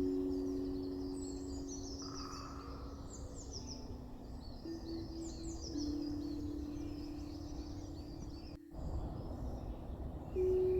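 Tongue drum notes ringing out slowly, each held for several seconds, over recorded bird song with high chirps and twitters. New notes are struck about five and six seconds in and again near the end, and the sound drops out for a moment about three quarters of the way through.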